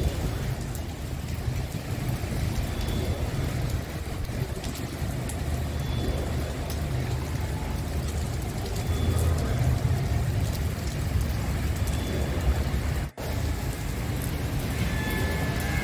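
Steady rain falling on wet pavement, over a continuous low rumble. The sound drops out for an instant about thirteen seconds in.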